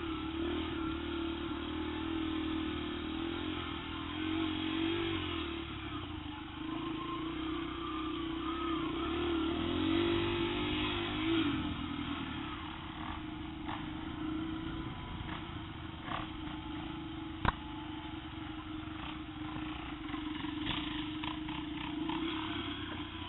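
Dirt bike engine, a Yamaha TT-R125 four-stroke single, running steadily with its pitch rising and falling as the throttle is worked, with light rattles and one sharp knock about three-quarters of the way through.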